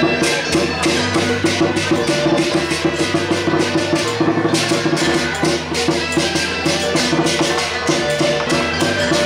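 Loud procession music: fast, dense drumming and percussion with a sustained melody line held over it.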